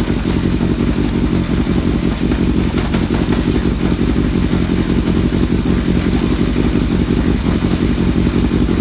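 2001 Yamaha Fazer's inline-four engine running steadily. Any rear-end clunk is barely heard over the engine; the owner suspects worn rear wheel bearings or an overstretched chain and sprockets.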